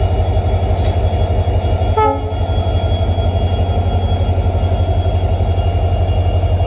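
WDP4 diesel locomotive's two-stroke engine running with a steady, deep pulsing throb as the uncoupled locomotive moves off, with a brief horn toot about two seconds in.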